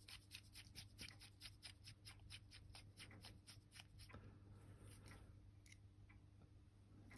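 Faint rapid scraping clicks of a fine-bladed screwdriver working under a small clock dial, about five a second for the first few seconds and then tapering off, over a low steady hum.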